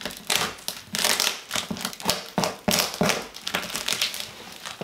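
Parcel packaging being handled and pulled at while being opened: irregular crinkling and rustling in quick, uneven strokes.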